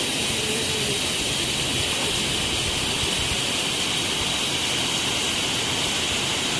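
Steady rushing of flowing river water, with a continuous high-pitched hiss on top that does not change.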